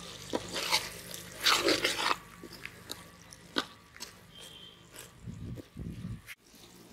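Steel ladle stirring a thick goat lung and liver gravy in a large aluminium pot, with clicks and scrapes against the pot and a louder sloshing stir about a second and a half in.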